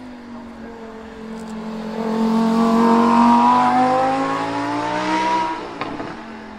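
Lamborghini Huracán EVO's 5.2-litre naturally aspirated V10 accelerating past on a wet track. The engine note rises and swells, loudest about three seconds in, then fades as the car pulls away. Near the end the note breaks off with a short sharp crack and returns at a lower pitch.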